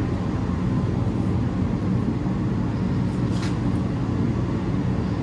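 A steady low mechanical rumble, like a motor running, that starts abruptly at the very beginning and holds an even level.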